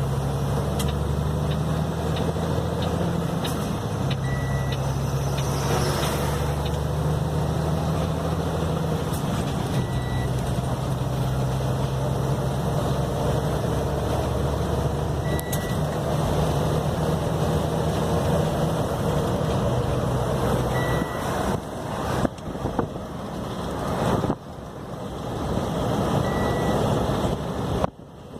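A motor engine running steadily, with a short high beep repeating about every five seconds. Some twenty seconds in, the engine tone fades and uneven, gusty noise takes over, cut by sudden dips.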